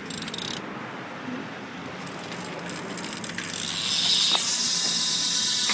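Haro 500.3 BMX's rear cassette hub clicking fast as the wheel freewheels, with fainter ticks after. About three and a half seconds in, a loud steady rushing hiss sets in and takes over.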